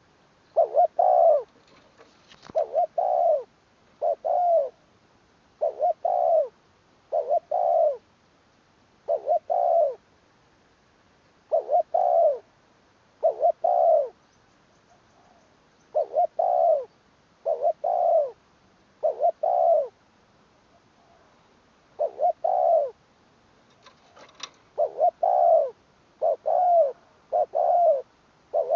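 Spotted dove cooing over and over: short coos mostly in twos and threes, a group every second or two, with a couple of longer pauses.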